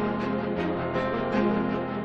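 Instrumental background music, with held notes that change about every half second.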